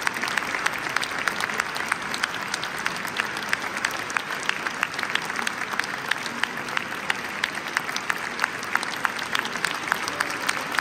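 Audience applauding steadily, a dense patter of many separate claps in a large stone church.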